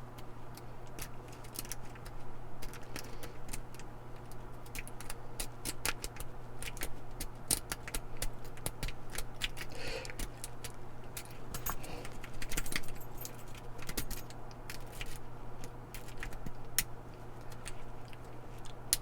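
Steel lock pick raking the pin stack of a laminated steel padlock under tension: an irregular run of small metallic clicks and scrapes.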